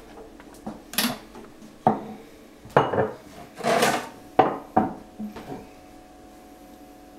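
Glass espresso cups and a stainless steel milk pitcher being picked up and set down on an espresso machine's drip tray and a wooden counter: a run of about six clinks and knocks with a short scrape among them.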